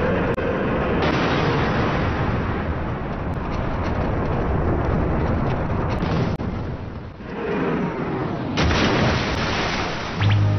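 Loud, continuous rumbling and crashing sound effects, like explosions, from an animated film's action scene. It dips briefly about seven seconds in, then surges again sharply about a second and a half later.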